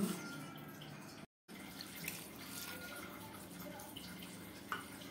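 Faint, steady hiss of running water, with a small click near the end.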